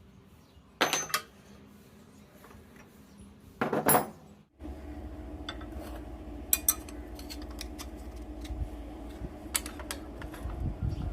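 Metal clanking twice as steel parts or tools are handled, then a steady low machine hum with light clicks and ticks over it.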